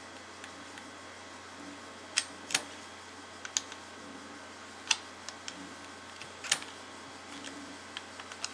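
Irregular sharp metal clicks and taps, about five clear ones and some fainter, from a hand tool working the lock nut on a radio-controlled car's front coil-over damper as it is tightened to set ride height.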